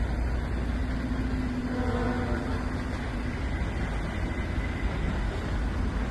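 Heavy diesel truck engine running with a steady low rumble, with a brief horn note about two seconds in.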